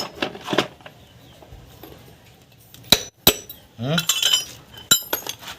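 Hard metal parts clinking together: a few light taps, then two sharp clinks about three seconds in that ring briefly, and another near the end.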